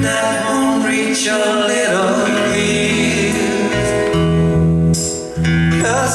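Live band playing a song: a man singing lead into the microphone over acoustic guitar, electric guitar and bass notes.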